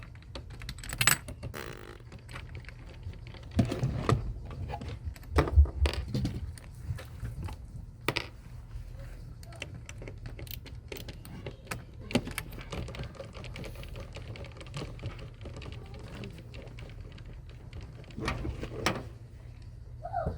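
Scattered small clicks, taps and light rattles of hard plastic and metal computer parts being handled and fitted together, a few louder knocks among them.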